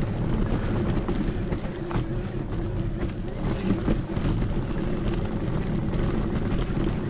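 Steady wind buffeting the microphone over a low, continuous rumble of wheels rolling along a dirt forest trail, with faint scattered ticks from the ground.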